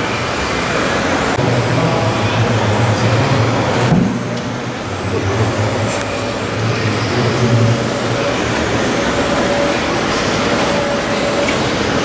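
Radio-controlled model tipper truck driving, its diesel truck engine sound pulsing in and out with a thin steady whine above it. A brief sharper sound comes about four seconds in.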